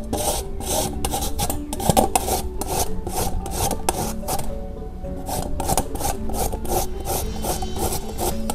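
A carrot being grated on a stainless steel grater into a steel bowl: rhythmic rasping strokes, about three to four a second, easing off briefly about halfway through.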